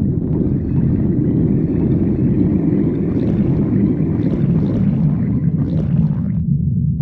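Human stomach growling: a long, loud, low rumbling gurgle that cuts off suddenly about six seconds in, leaving a lower steady rumble.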